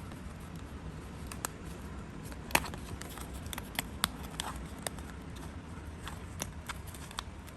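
Irregular small clicks and snips of paper and crafting tools being handled, about a dozen scattered through, the sharpest about two and a half seconds in, over a low steady hum.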